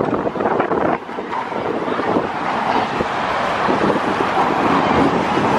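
Steady road traffic passing close by on the roadway, with wind buffeting the microphone.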